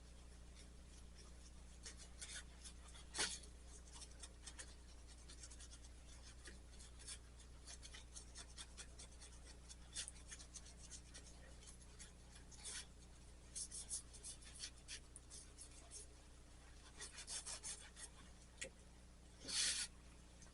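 Toothbrush scrubbing black patina onto soldered seams: faint, intermittent scratchy bristle strokes in short clusters, loudest about three seconds in and again near the end.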